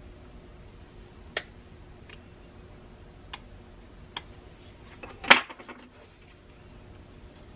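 Light clicks of tools and small carburetor parts being handled during a carburetor strip-down: four separate clicks, then a louder brief clatter about five seconds in with a few trailing ticks.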